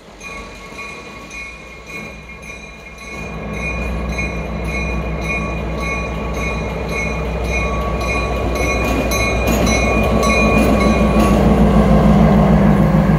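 Diesel engine of an SW10 switcher locomotive rumbling, growing louder as it rolls slowly up to and past close by. Over this a bell rings with an even pulse, stopping shortly before the end.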